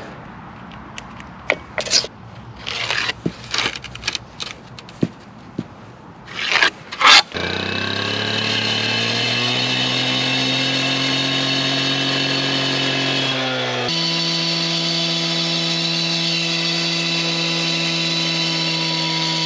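Knocks and clatter for about seven seconds, then a cordless cut-off saw runs as a steady whine, rising as it spins up, while cutting a granite step tread with water on the cut. About 14 seconds in its pitch shifts, and it runs on to the end.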